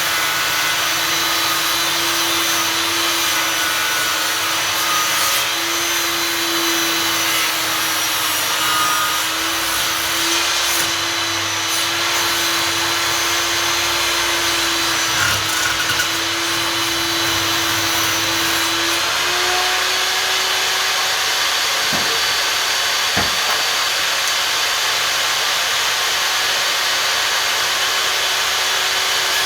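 Einhell table saw running and ripping a wood board, a steady loud hum over the noise of the cut. About two-thirds of the way in, the hum rises slightly in pitch.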